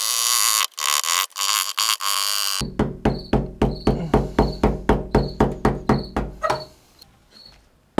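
A metal razor scraper rasping in short strokes against old window adhesive on the van's window frame. About two and a half seconds in, background music with a steady beat of about four a second takes over and fades out near the end.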